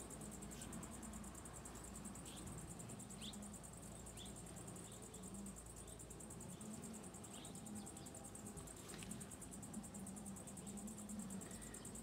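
Honeybees humming around an opened hive: a low, wavering buzz. Over it runs a steady high-pitched insect trill, with a few faint clicks.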